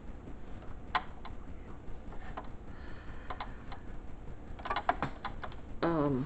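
Irregular light clicks and taps of small objects being handled at a sewing machine, with a quick run of clicks about five seconds in. A brief vocal sound comes near the end.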